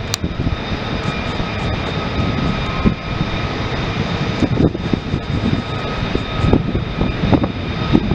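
Lockheed Martin F-35B Lightning II's Pratt & Whitney F135 turbofan running loud: a steady rumble with several high, steady whine tones on top.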